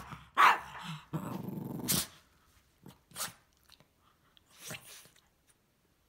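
Cavalier King Charles spaniel puppy barking and growling at a switched-off vacuum cleaner. There is a loud bark near the start, then a growl of about a second, then a couple of fainter short sounds.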